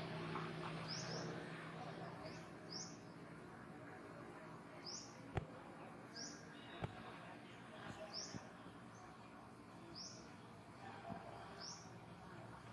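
A bird repeating a short, high chirp about once a second over faint outdoor background noise, with two sharp clicks near the middle.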